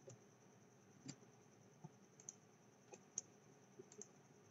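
Near silence broken by several faint, irregular computer mouse clicks.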